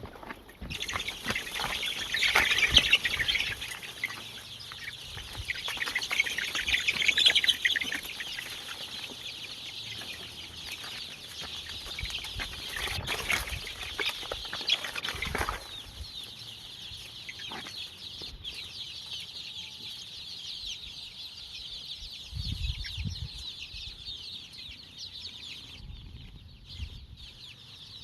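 Desi (country) chickens clucking and flapping their wings, with a dense high-pitched chatter throughout. It is louder about two to three seconds in and again around seven seconds.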